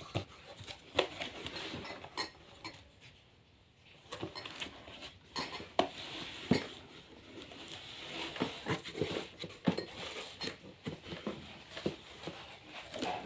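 Glass drinking glasses clinking against each other in a cardboard box as its flaps are folded shut and the box is shifted on the table, with scattered knocks and cardboard scraping between them. There is a short lull about three seconds in.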